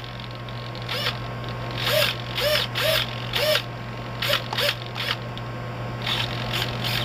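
Elevon servos on a BlitzRCworks F-16 RC jet whirring as the transmitter sticks are moved at high rates: about a dozen short gear whirs, each rising and falling in pitch, some in quick pairs, as the servos drive the elevons up, down and around.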